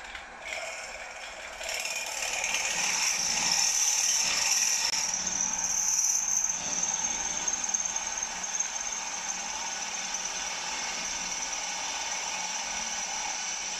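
Bench mill-drill drilling the steam exhaust hole through a model traction engine's cylinder block. The bit cuts steadily with a high-pitched whine that starts about two seconds in, is loudest for the next few seconds, then settles to an even level.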